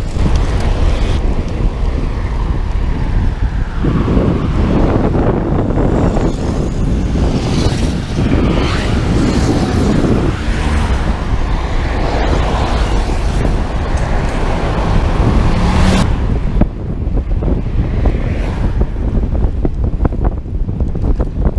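Wind buffeting a bike-mounted camera's microphone as a road bike rides at speed, with road traffic passing alongside. The rushing swells louder for several seconds in the first half and changes abruptly about three-quarters of the way through.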